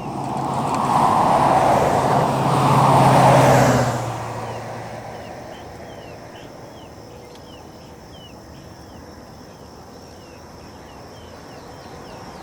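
A car passing on the road: its engine and tyre noise swells over the first few seconds, peaks about three and a half seconds in, then fades away. Short chirping calls repeat steadily through the quieter stretch that follows.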